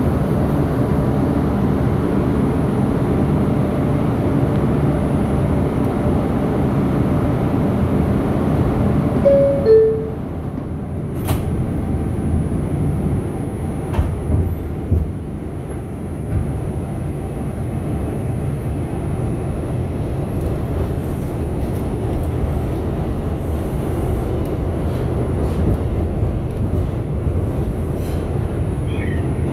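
Inside a Bombardier R142 subway car: a steady hum from the train's equipment, then a short two-note falling door chime about a third of the way in, after which the train gets moving with a rumbling wheel-and-track noise and occasional clicks.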